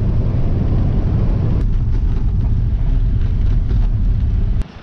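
A vehicle driving along a road: a steady, low engine and road-noise rumble that cuts off suddenly near the end.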